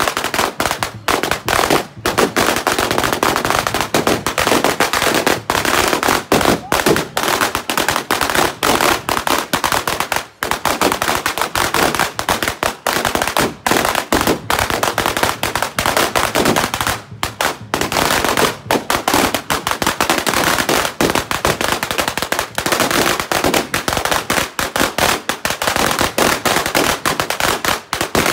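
Strings of firecrackers going off in a dense, continuous rapid crackle of bangs, with brief lulls about ten and seventeen seconds in.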